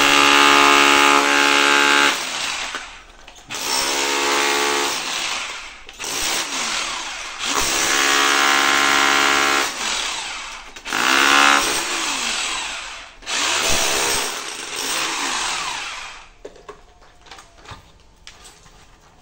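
Corded electric hammer with a chisel bit breaking up floor tile and the screed beneath to reach a leaking water pipe. It runs in about six bursts of one to two and a half seconds, a steady motor whine over the hammering, and winds down between bursts. Near the end only light knocks of loose debris are heard.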